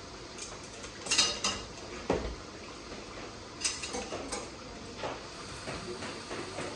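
Metal spoon or spatula clinking and knocking against a metal karahi pan, several separate strikes. The loudest is a quick ringing cluster about a second in, followed by a duller knock and a few lighter clinks through the middle.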